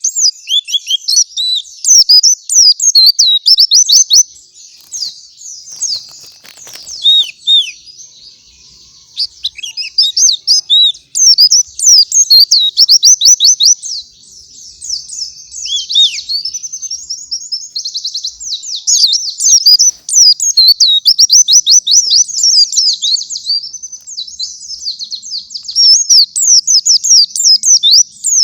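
White-eye (pleci) singing a long, fast, high-pitched song of rapid chirps and twittering trills, delivered in loud runs with short pauses between them.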